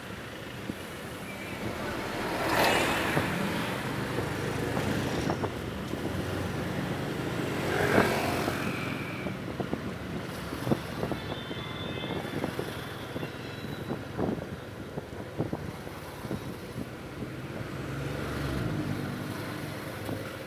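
Motorcycle running steadily on a ride through street traffic, with two louder swells of noise about two and a half and eight seconds in and scattered short clicks.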